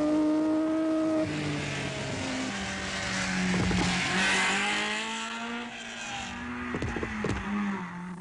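Alfa Romeo Giulietta rally saloons' small four-cylinder engines running at high revs as the cars pass one after another. One high steady engine note gives way about a second in to a lower one that climbs slightly, with a swell of tyre and road noise about four seconds in.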